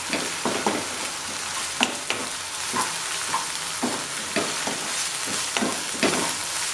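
Crushed ginger, garlic and green chillies sizzling in hot coconut oil in a non-stick kadai, with a spatula scraping and tapping against the pan in quick, irregular strokes while they are stirred.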